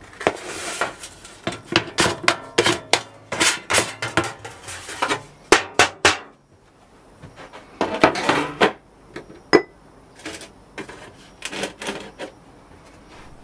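Metal objects clattering and knocking on a workbench as casting gear is handled and set down, in quick runs of sharp knocks with a pause in the middle. One short metallic ring sounds about two-thirds of the way through.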